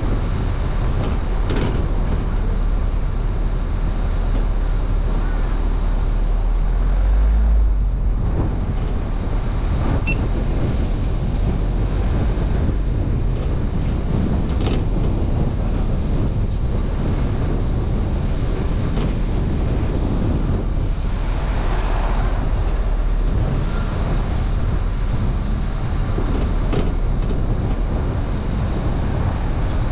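Car driving slowly on a paved road: a steady low rumble of engine and tyre noise, swelling briefly about seven seconds in.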